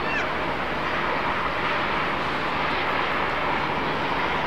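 Twin turbofan engines of a Boeing 767-300ER taxiing at low power: a steady, even rush of jet noise.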